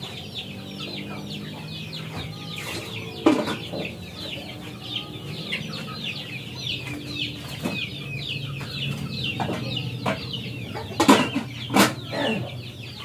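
Chickens clucking and chirping without a break, with a few sharp knocks, the loudest two coming near the end.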